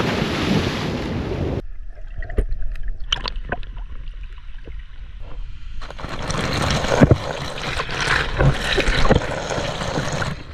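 A person splashing into the sea, with water rushing for about a second and a half. Then a few light knocks, and from about six seconds in water gushing from an outdoor tap and splashing over the microphone.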